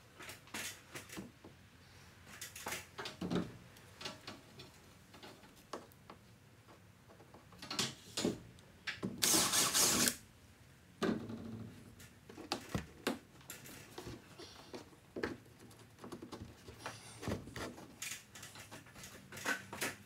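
DeWalt cordless drill running briefly, for about a second near the middle, as its long bit bores up through the drywall ceiling. Before and after come scattered knocks and clicks of handling.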